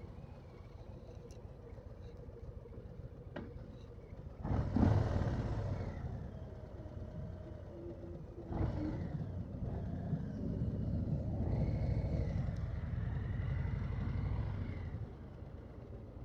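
Harley-Davidson Low Rider S V-twin engine running at low revs, then opened up sharply about four and a half seconds in and again about eight and a half seconds in, pulling loud under throttle before easing off near the end.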